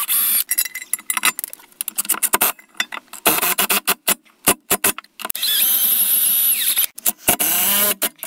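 DeWalt 20V cordless impact driver driving lag bolts through a metal mounting bracket into a wooden sill plate. Scattered clicks and rattles of the bolts and bracket are followed, about five seconds in, by a spell of steady motor whine that winds down, then more clicks.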